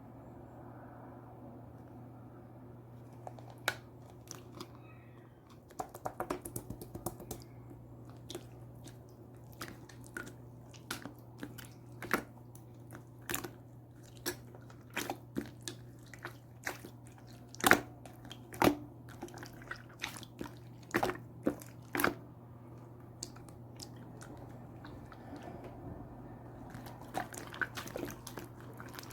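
Clear, colourless slime being squeezed and pressed by hand, giving irregular sticky clicks and pops, with a quick cluster of pops about six seconds in and a short lull near the end.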